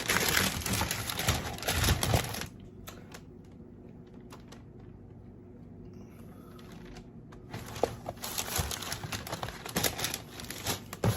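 Paper takeout bag and food wrappers crinkling and rustling as they are handled close to the microphone, with a quieter pause in the middle before the crackling picks up again.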